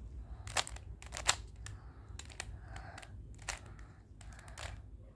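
Plastic Rubik's cube being turned by hand, its layers clicking and clacking in a string of sharp, uneven snaps as the moves that finish the white cross are made.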